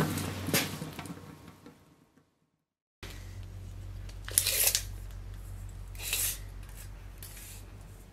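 Intro music fading out, then after a short silence a steady low electrical hum with a few short scraping or cutting strokes of hand work.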